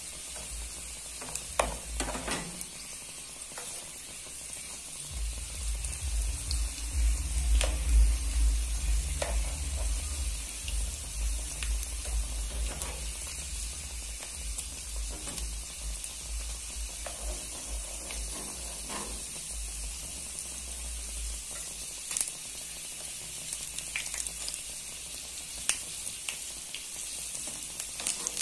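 Pastéis frying in hot oil in a shallow aluminium pan: a steady sizzle with scattered sharp clicks. A low rumble runs through the middle stretch.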